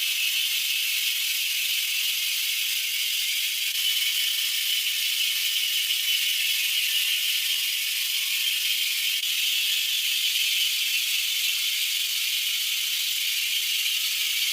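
Steady mechanical whir with a rattle, even and unchanging throughout, all high-pitched with no low end.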